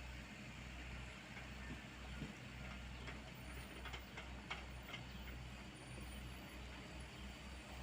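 Diesel engine of heavy construction equipment running steadily with a low rumble, with a few sharp knocks around the middle.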